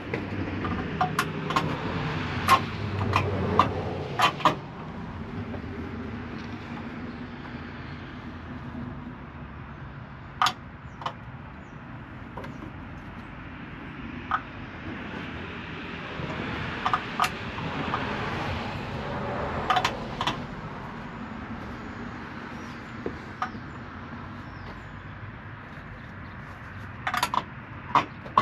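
Truck grille and headlight parts being handled and fitted onto the front end: scattered sharp clicks and knocks, several in quick clusters, over the rustle and bump of handling.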